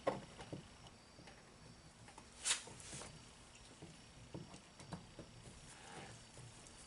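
Faint scattered clicks and light scrapes of a screwdriver and hands working at the plastic door panel trim, with one louder, sharper click about two and a half seconds in.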